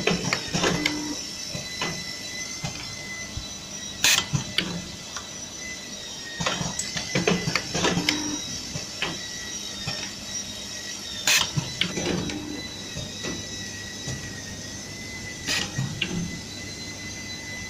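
Automatic DC connector plug soldering machine running through its cycle: irregular clusters of mechanical clicks and clacks, with a few sharper, louder strokes every several seconds, over a faint steady high whine.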